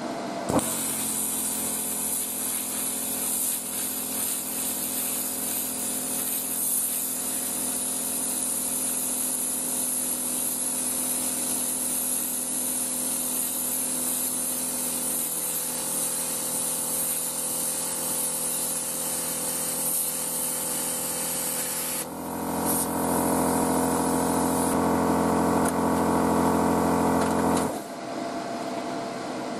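Plasma cutter cutting 2 mm stainless steel sheet: a steady, high-pitched hiss from the torch over the steady hum of the machine's built-in compressor. About 22 seconds in, the sound changes to a louder, lower one that lasts several seconds and cuts off sharply near the end.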